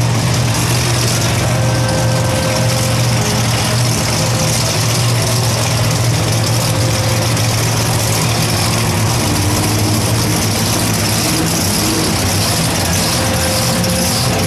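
Bounty Hunter monster truck's engine idling steadily with a low, even rumble, not revved.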